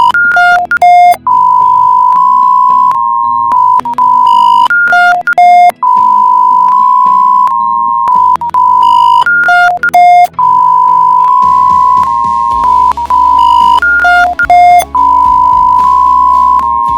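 Synthesized emergency alert alarm, loud and looping: a long steady tone is broken about every four and a half seconds by a quick run of alternating high and low beeps, over a low drone. From about eleven seconds in, a noisier rumble joins underneath.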